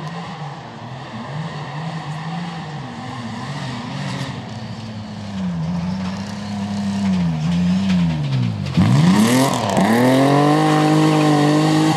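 Rally car engine at high revs, its pitch climbing and dropping again and again through gear changes as the car passes. About nine seconds in it suddenly becomes much louder and closer: the pitch dips sharply twice, then climbs and holds high as the car powers through the corner.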